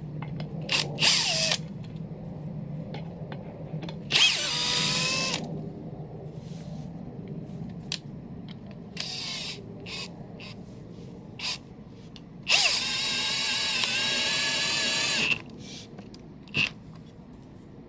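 Cordless drill-driver driving wood screws through a plywood panel into a wooden crosspiece. There are a few short spins about a second in, a run of about a second a quarter of the way through, and a longer run of nearly three seconds in the second half. Each run's whine climbs as the motor spins up, and short blips and light clicks of handling the screws fall between the runs.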